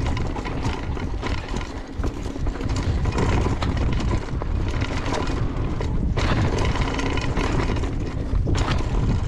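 Mountain bike riding fast down a loose dirt trail: tyres crunching over dirt and the bike rattling over bumps, with a low wind rumble on the camera microphone.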